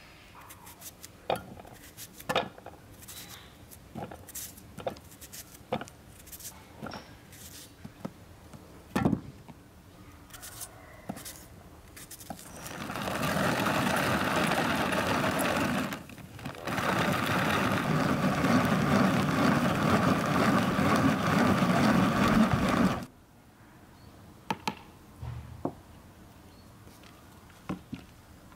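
Small food chopper with a clear bowl and teal top chopping onion: it runs steadily for about three seconds, stops briefly, then runs about six seconds more and cuts off suddenly. Before it, scattered light knocks and clicks.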